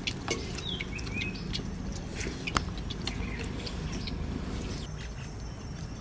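Eating by hand from a steel plate: fingers mixing rice and curry, with scattered light clicks against the metal. A few bird chirps about a second in.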